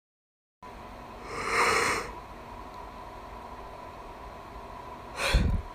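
A person's breath sounds close to the microphone: a loud noisy breath about a second in, then a short sharp burst with a low thump near the end, over a steady faint hum.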